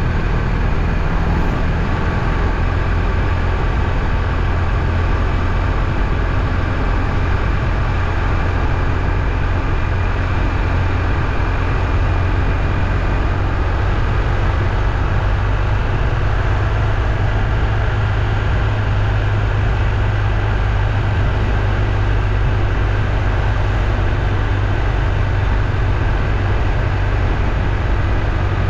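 Steady, unbroken rumble of a moving vehicle, heaviest in the low end, with no change in pace.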